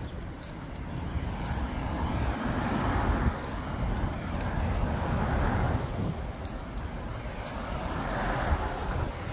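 A car passes on the street alongside, its tyre and engine noise swelling over a few seconds and fading, with a second car coming up near the end. Light metal jingling of the dog's collar and leash hardware ticks about once a second with its steps.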